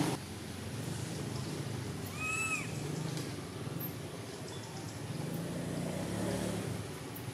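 Steady low hum like a running motor vehicle. About two seconds in comes one short, high call that rises and falls.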